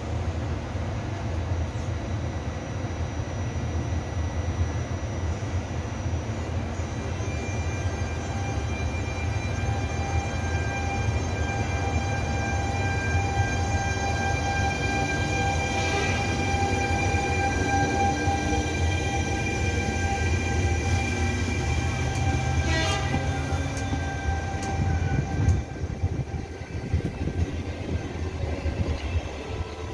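Trenitalia E.464 electric locomotive pulling a regional train of passenger carriages out of the station: a low rumble of wheels on track, and from about seven seconds in a steady multi-tone electric whine from the locomotive that fades a few seconds before the end. A couple of sharp clicks from the running gear come partway through.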